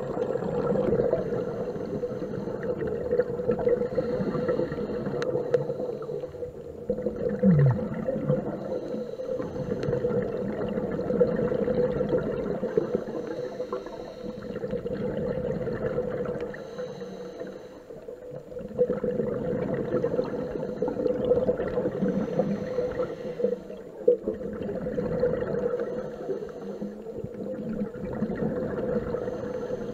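Scuba diver breathing through a regulator underwater: bubbling, hissing breath cycles that swell and fade every few seconds, over a steady low hum.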